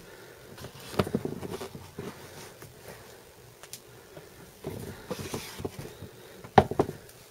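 Handling noise as a sneaker is turned over in the hands: scattered light rustles and small knocks, with a sharper knock near the end.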